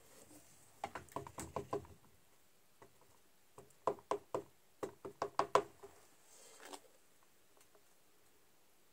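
Quick light taps in two runs, about five or six a second, as an ink pad is dabbed onto a rubber stamp mounted on a stamp positioner's clear plastic door, followed by a soft rustle.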